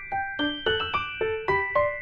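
Background music: a light keyboard melody of single struck notes, about four a second, each ringing on under the next.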